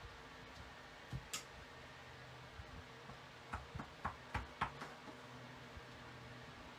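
Clear acrylic stamp block being knocked lightly against an ink pad and cardstock on a desk while inking and stamping a rubber stamp: two faint knocks about a second in, then a quick run of about six small taps a little past the middle.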